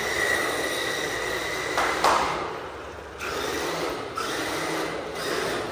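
A four-wheel-drive, shaft-driven electric RC car running over a floor, its motor and drivetrain giving a steady whine over tyre noise that rises and falls with the throttle. There is a sharp knock about two seconds in.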